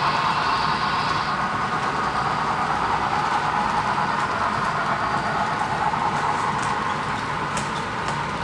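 Model train cars rolling along the layout track: a steady whirring rattle, with a few light clicks near the end.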